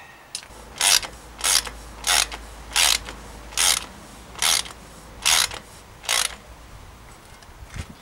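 Ratchet wrench on a bottom-bracket tool clicking through about eight quick strokes, one every second or less, as a threaded bottom bracket cup is screwed into a bicycle frame.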